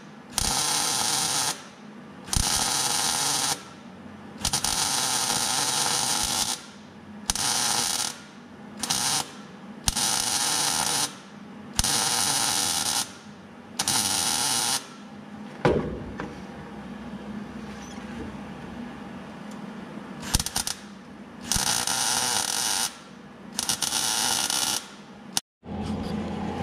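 MIG welder burning a steel leaf spring relocation bracket onto the car's frame in about a dozen short bursts of crackling arc, each a second or two long, with brief pauses between beads.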